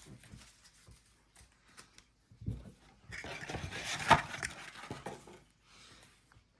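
Trading card packaging being handled and opened. There is a soft thump about two and a half seconds in, then a couple of seconds of rustling with a sharp click in the middle of it.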